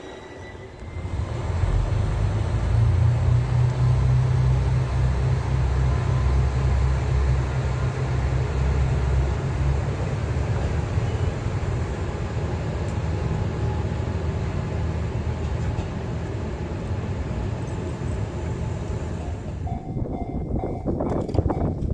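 Diesel railcar engine running with a steady low drone as the train moves through the station, with rolling rail noise. The drone is loudest in the first half and eases off later.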